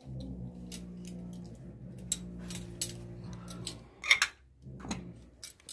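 A low steady hum with scattered light clicks, then about four seconds in a clatter as two small red serving dishes are picked up and knock together.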